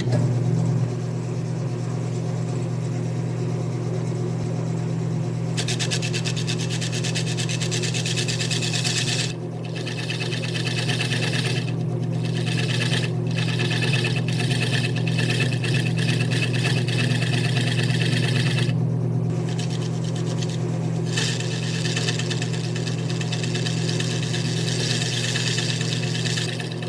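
Grizzly wood lathe motor coming on and running with a steady hum. From about six seconds in, a grooving tool cuts into the spinning spotted-maple bowl, a harsh scraping hiss in several passes with short breaks, lighter near the end.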